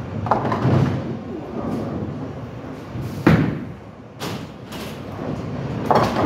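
Bowling ball crashing into the pins about half a second in, then a loud thud halfway through as the next ball is released onto the lane, and another clatter of pins near the end, over the rumble of balls rolling down the lanes.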